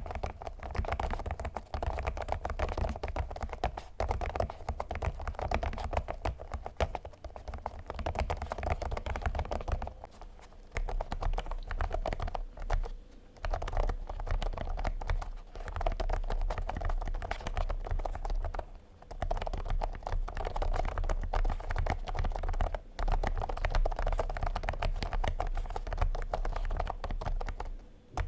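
Continuous typing on an Abko AG75 mechanical keyboard covered by a thick keyskin that muffles the keystrokes. It starts on red (linear) switches, then after a brief pause about ten seconds in goes on with brown (tactile) switches.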